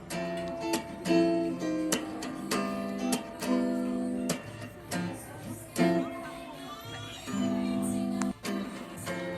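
Background music: acoustic guitar chords strummed in a steady rhythm.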